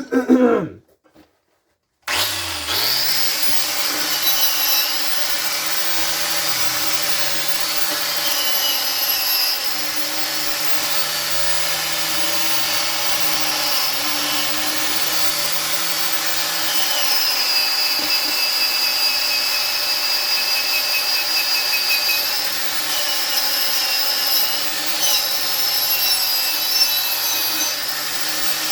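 Angle grinder starting up about two seconds in and running continuously against the steel of a broken tire iron, cleaning the coating off around the break. The motor's hum dips and recovers several times as the wheel is pressed on and eased off.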